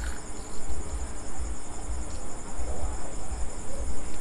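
Crickets trilling steadily in a high, continuous night chorus, over an irregular low rumble.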